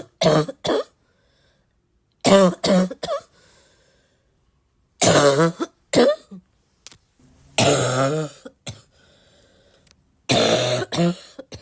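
A girl coughing in about five bouts of two or three coughs each, with short quiet pauses between bouts. Some coughs are voiced and some are longer and rougher.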